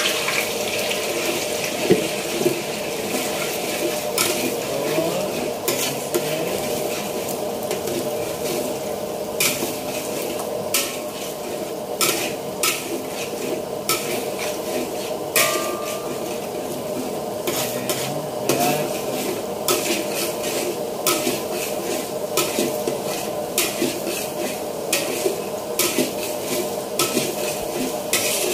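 Beaten eggs sizzling in hot oil in a metal wok, the sizzle densest in the first second as they go in, while a metal spatula scrapes and knocks against the wok over and over, scrambling them.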